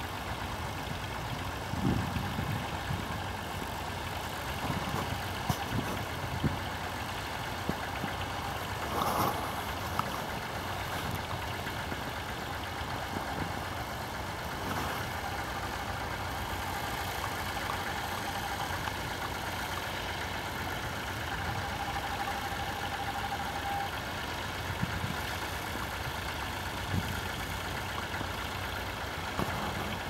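Vintage tractor engines running steadily as they pull ploughs across the field, with a few brief low thumps.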